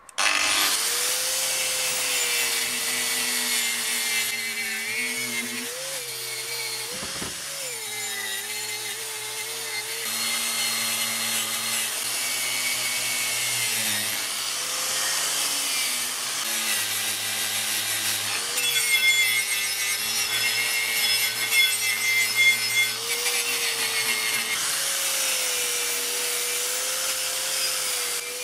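Handheld electric power tool switched on and working continuously, its motor tone sagging and recovering several times as it is pressed into the work, under a harsh scraping hiss.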